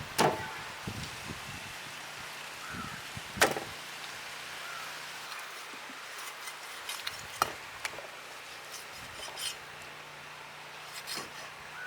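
A knife chopping chicken on a wooden board as the meat is cut off the bone: three loud, sharp knocks a few seconds apart, with a few lighter taps between.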